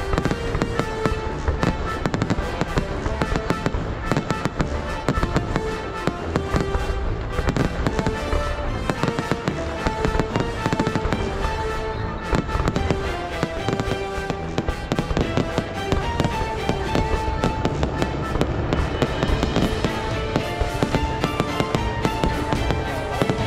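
Fireworks going off in a dense, continuous barrage of bangs and crackles, with music playing underneath.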